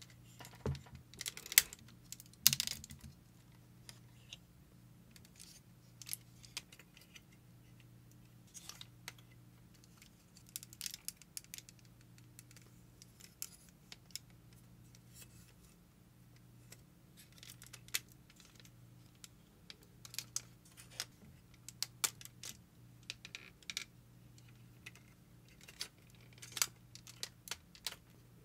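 Plastic and die-cast metal parts of a Gundam action figure clicking and snapping as they are moved and folded by hand during a transformation. The clicks are scattered and irregular, loudest in the first few seconds, over a faint steady low hum.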